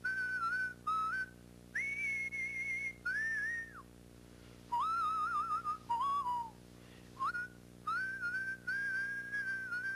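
A person whistling a tune in short phrases, each a clear single note that slides and wavers in pitch, with brief breaks between phrases, over a steady low hum.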